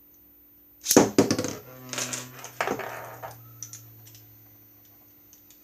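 Two Beyblade keychain tops launched into a small plastic dish: a burst of sharp clacks and rattling about a second in, more knocks a second later, then a steady spinning hum as they clash and slow, fading out.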